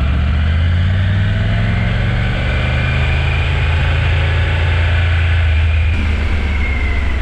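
Motorcycle engine running steadily on the move, its pitch rising and falling slightly.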